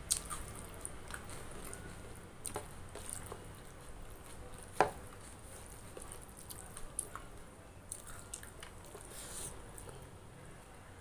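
Eating by hand: fingers squishing and mixing rice and curry on a plastic plate, with chewing and scattered sharp wet clicks, the loudest about five seconds in.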